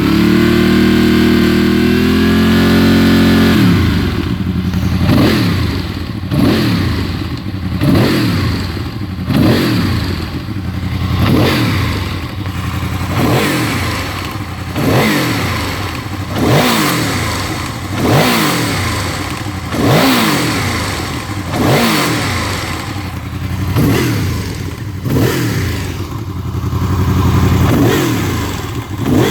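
Honda VFR motorcycle's V4 engine held at a steady raised speed for about three and a half seconds, then revved with the throttle over and over, roughly once every one and a half seconds, each rev climbing and dropping back.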